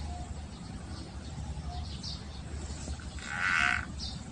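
A short animal cry, under a second long, about three seconds in, with a few faint short chirps before it.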